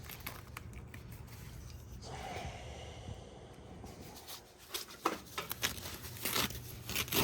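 Door-handle hardware being worked by hand: a few short clicks and scrapes in the second half, over a faint low hum.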